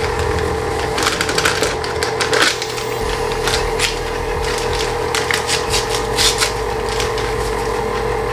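Crinkling and rustling of an instant pudding mix packet being torn open and shaken out over a bowl of milk, in irregular crackles. Under it runs the steady hum of a stand mixer on its lowest speed.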